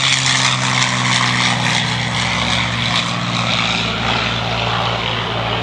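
Grumman OV-1 Mohawk's twin turboprop engines during a flypast: a steady propeller drone with a hissing turbine note on top, slowly fading towards the end.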